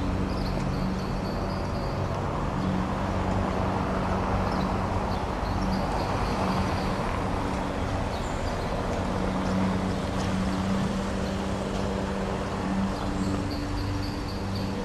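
Steady street traffic with a low engine hum, and a few faint high chirps near the start, in the middle and near the end.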